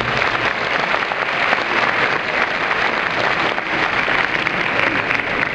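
Audience applauding: a steady, dense patter of many hands clapping in a hall.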